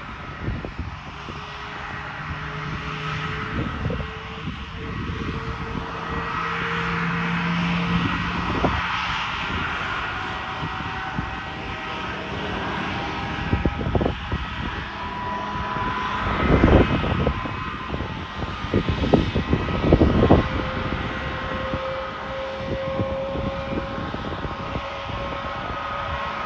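Airbus A320 turbofan engine running after start, a steady rushing noise with several whining tones, some creeping slightly higher in pitch. A few sudden loud low thuds break in around the middle.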